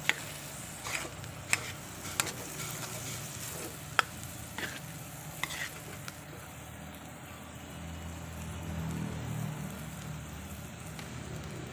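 Bopis (minced pork lung and heart with diced vegetables) sizzling in a hot pan while it is stirred. A utensil clicks and scrapes against the pan several times in the first half.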